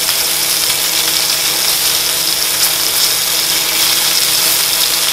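Duck breasts frying in rendered fat in a cast iron skillet: a steady sizzle over a faint steady low hum.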